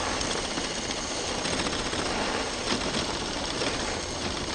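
Radio-controlled crawler truck with a brushless motor scrabbling up a loose gravel slope: its tires spin on the stones, making a dense, steady crunching rattle of gravel and dirt.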